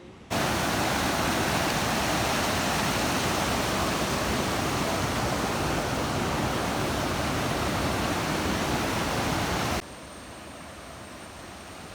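Water of a waterfall rushing, heard as a loud, even wash of noise. It starts suddenly just after the start and cuts off abruptly near the end, leaving a much quieter steady hiss.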